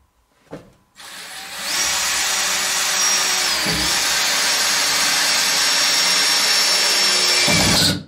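Cordless drill running into a wooden batten for about seven seconds with a steady high whine. Its pitch dips briefly under load about halfway through, and it stops abruptly at the end.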